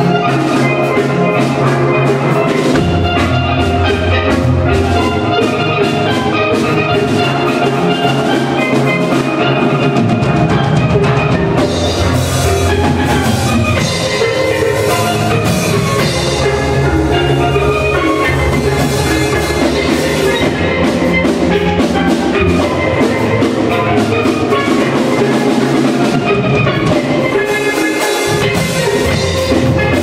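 Steel pan band playing a lively tune: many ringing pitched notes from the pans over a low bass part that comes in a few seconds in.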